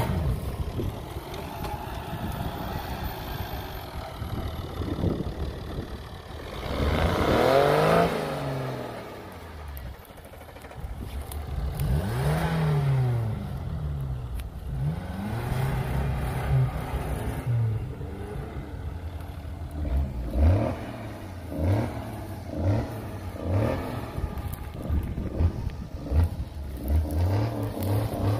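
Off-road 4x4's engine revving up and down, trying to drive a vehicle that is dug into the mud and won't roll. There are two long revs partway through, then a run of short, quick blips of the throttle, about one a second, toward the end.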